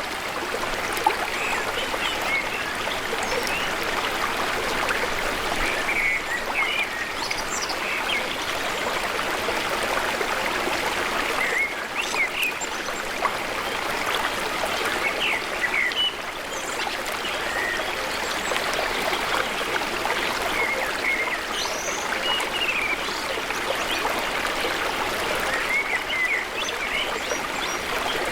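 Hill river running over rocks: a steady, even rush of flowing water, with scattered short high chirps here and there.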